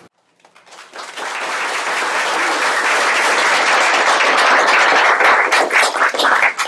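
Audience applauding: the clapping builds about a second in, holds loud and dense, and dies away near the end.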